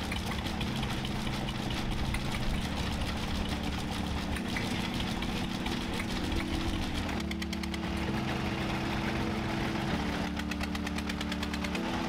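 Old engines running with a steady knocking beat, with quick regular ticks coming through more clearly in the second half.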